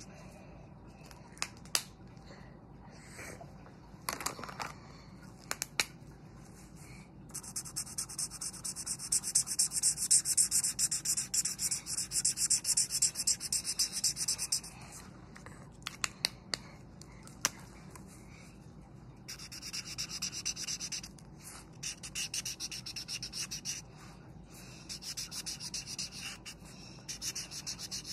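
Felt-tip marker scribbling back and forth on paper in rapid strokes, colouring in. A long run of quick hissing strokes about a quarter of the way in, then, after a pause with a few small clicks, shorter runs of strokes.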